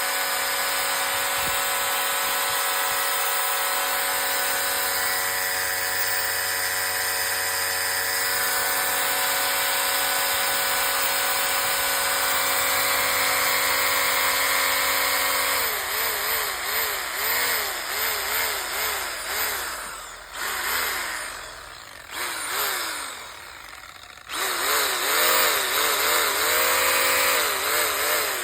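Makita 800 W electric hammer drill running at a steady speed. About halfway through, its speed starts rising and falling rapidly in a quick wobble. It dips and nearly stops a few times, then spins back up and cuts off at the end.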